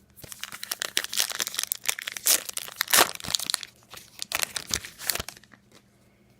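A trading-card pack's wrapper crinkling as it is torn open and handled, a dense run of crackles that stops about a second before the end.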